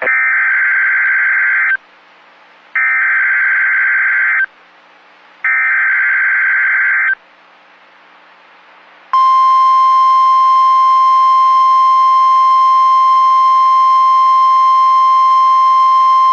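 NOAA Weather Radio Emergency Alert System signal for a severe thunderstorm watch. It opens with three harsh bursts of the SAME digital header, each under two seconds with about a second between them. About nine seconds in, the steady single-pitch warning alarm tone starts and holds.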